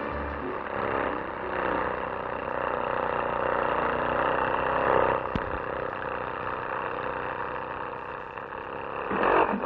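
Cartoon sound effect of a small open car's engine running as it drives, a steady noisy clatter. There is a sharp click about five seconds in and a louder burst near the end.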